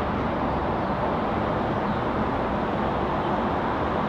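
Steady road traffic noise: a continuous, even wash of vehicle sound with no single car standing out.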